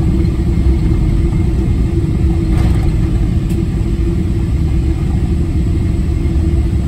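Boeing 777 cabin noise on the landing rollout: a steady low rumble of the jet engines and the wheels rolling on the runway, with a steady hum running through it.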